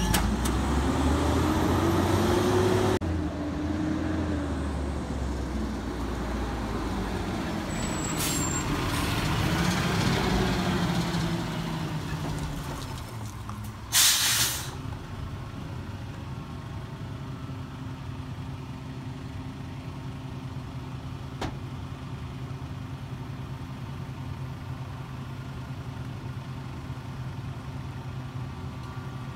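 Natural-gas engine of a 2013 Mack LEU garbage truck pulling up, its pitch rising and falling. A short, sharp air-brake hiss comes about 14 seconds in as the truck stops. After that the engine idles steadily.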